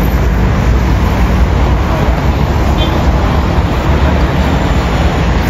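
Steady road traffic noise, loud and even and mostly deep, with passing vehicles including a bus.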